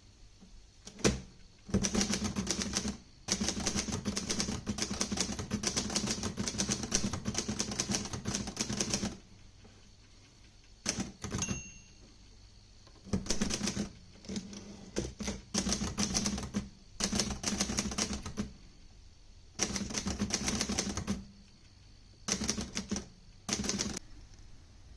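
1964 Hermes 3000 manual typewriter being typed on: runs of rapid key strikes in bursts separated by short pauses, with a brief bell-like ring about halfway through.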